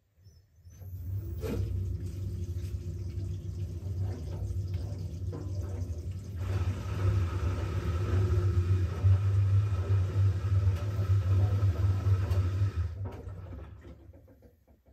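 Siemens WG56 iQ700 washing machine draining: the drain pump starts about a second in with a steady low hum as water is pumped out. About six seconds in it gets louder and rougher, then it dies away near the end.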